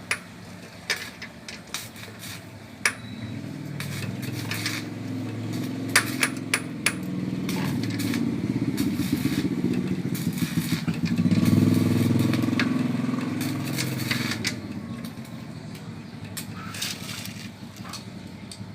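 A motorcycle engine running. It grows louder to a peak around the middle, then fades, with sharp clicks and knocks in the first several seconds.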